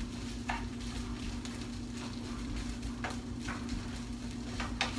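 Food sizzling in a frying pan with a steady low hum underneath, and a spatula scraping the pan four times: about half a second in, twice around three seconds, and once near the end.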